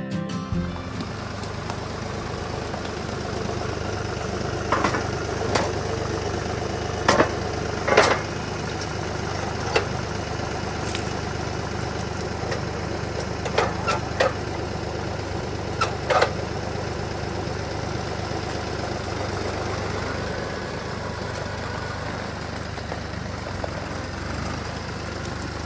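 Engine idling steadily, with about nine sharp knocks and clanks scattered between about five and sixteen seconds in.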